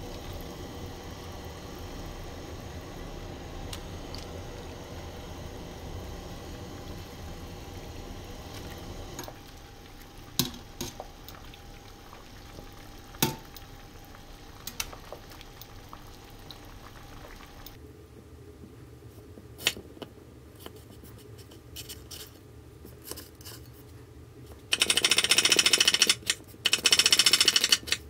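A pot of boiling water with cabbage leaves in it bubbles steadily under a faint hum, with a few sharp clinks as the leaves are lifted out with a wire skimmer. Near the end comes a loud, fast run of knife strokes: a large knife dicing onion on a bamboo cutting board.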